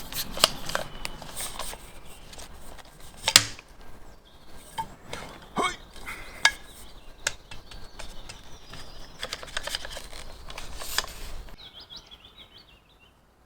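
Scattered sharp clicks and knocks of gear being handled, over a low rumble that stops near the end. A bird chirps in a short run of notes in the last second or two.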